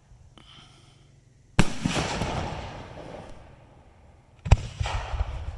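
Aerial fireworks shells bursting: two sharp bangs about three seconds apart, each followed by a fading rumble with smaller pops.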